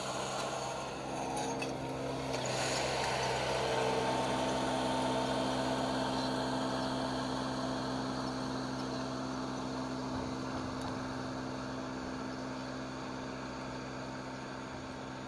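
A steady machine hum: several held low tones over an even background noise, growing slightly louder a few seconds in and then slowly fading.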